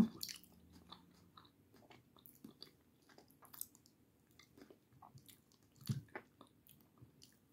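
A person chewing food close to the microphone: faint, scattered small mouth clicks and smacks, with a brief low sound about six seconds in.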